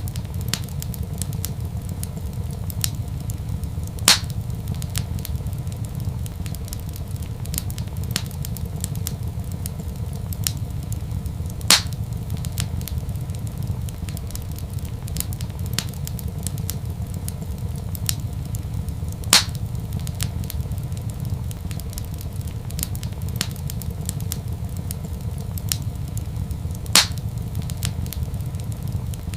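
Wood fire crackling in a fireplace: a steady low rumble under a continual scatter of small crackles, with four louder pops evenly spaced about seven and a half seconds apart.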